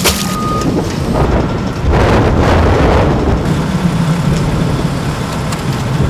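Strong storm wind buffeting the microphone as a steady low rumble, with a louder rush of noise from about one to three and a half seconds in.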